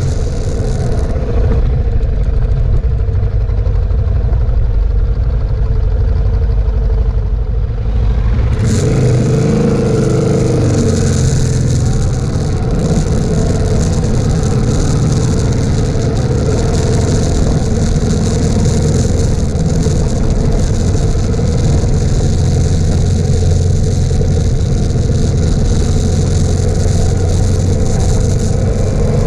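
Suzuki DR650's single-cylinder engine running under the rider, quieter and low at first, then picking up speed about eight or nine seconds in with a rising engine note. After that it runs steadily on a dirt track, with a hiss of wind and tyre noise over it.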